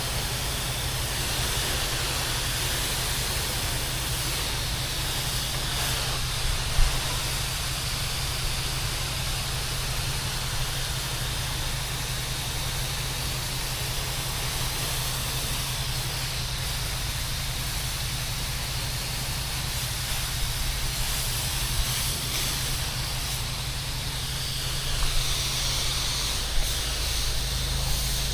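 Pressure washer running: a steady engine hum under the constant hiss of the water spray. A single sharp knock about seven seconds in.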